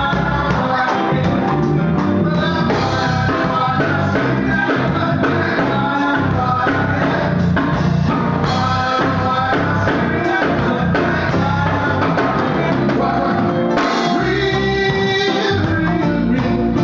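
Live band playing: a man and a woman singing into microphones over keyboard and drum kit.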